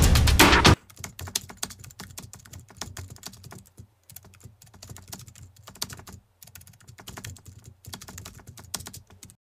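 Loud music that cuts off abruptly about a second in, followed by a quiet, quick, irregular run of keyboard-typing clicks: a typing sound effect that goes with text being typed out letter by letter.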